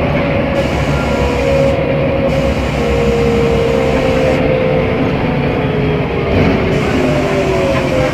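Mercedes-Benz O500MA articulated bus under way, its engine and drivetrain running steadily with a whine that slowly falls in pitch, and a second, higher whine falling near the end. This is the bus's distinctive sound compared with other O500MAs.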